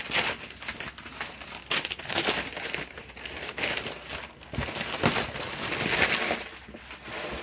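Paper wrapping crinkling and rustling in irregular bursts as it is handled and pulled off a stack of comic books.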